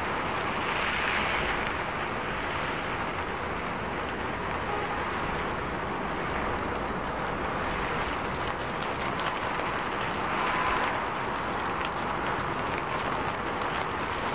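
Heavy rain falling steadily, an even hiss that swells briefly about a second in and again about ten seconds in.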